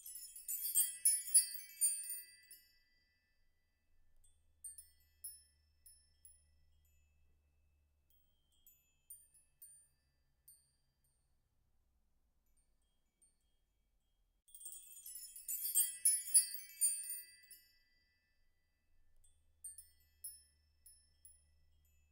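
Wind chimes ringing with high, bell-like tones. They come in two dense flurries of many overlapping strikes, at the start and again about fifteen seconds in, with a few scattered single notes between.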